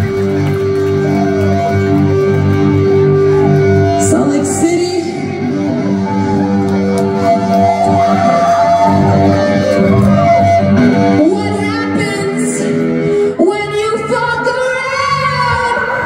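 Live rock band playing through a club sound system: electric guitars hold long ringing chords with singing over them, and the sound shifts about two-thirds of the way through.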